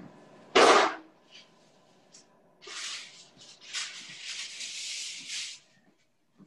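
Kitchen handling noise: a loud clatter about half a second in, then a few seconds of rustling and scraping as a baking sheet and silicone mat are handled.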